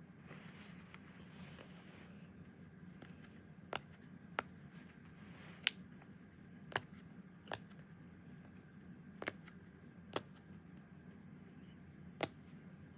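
Small plastic fidget toy being clicked by hand: about eight sharp, separate clicks at uneven intervals, starting a few seconds in.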